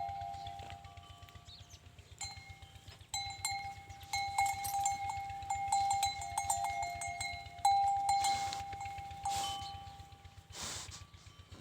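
Metal bells on cattle clanking and ringing irregularly as the animals move, with a few short breathy whooshes near the end.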